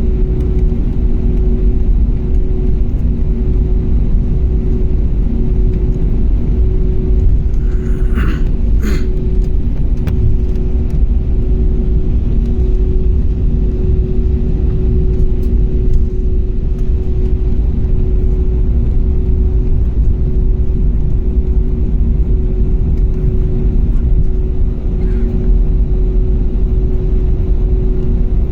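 Airliner cabin noise: a steady, loud engine and air rumble with a constant hum. About eight seconds in, a two-note cabin chime sounds.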